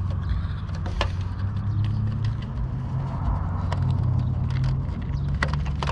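A few small clicks and taps from the plastic RC car body and its body clip being fitted by hand, over a steady low rumble.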